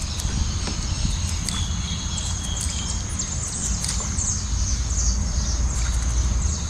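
Outdoor riverside ambience: birds chirping now and then over a steady high insect drone and a low rumble.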